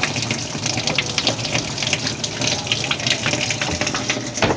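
Water from a hose pouring and splashing into the tub of a Super Asia twin-tub washing machine as it fills. There is a single knock near the end.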